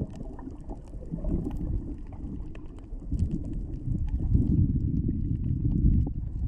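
Underwater sea noise picked up by a submerged camera: a muffled low rumble of moving water that swells a little in the middle, with faint scattered crackling clicks.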